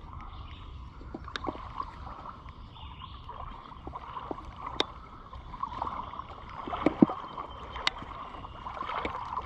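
Shallow creek water running and babbling, with scattered small clicks and splashes; the loudest comes about seven seconds in.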